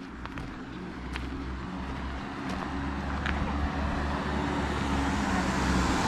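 A motorhome driving along the road toward the listener, its engine and tyre noise growing steadily louder as it draws level near the end.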